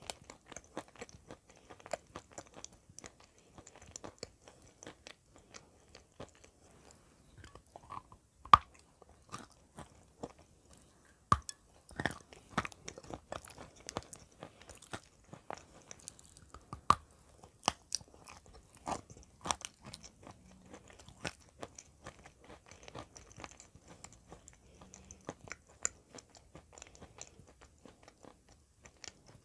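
Crunching and chewing of hard dry white clay chunks, with irregular sharp cracks as pieces are bitten and broken, the loudest about 8 s, 11 s and 17 s in.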